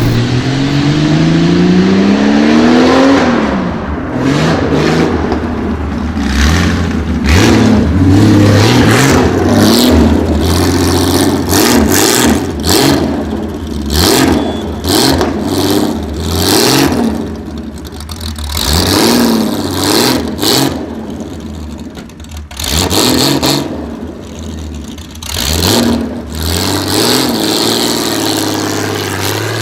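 Supercar engine revved hard several times, climbing steeply in pitch over the first few seconds. Between and after the revs, the exhaust fires off many sharp pops and bangs.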